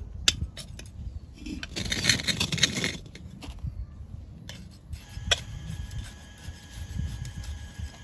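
Gloved hands working potting soil in around succulents in a glazed ceramic pot: soil rustling and scraping, with a few light clicks and taps. The loudest rustle comes about two seconds in.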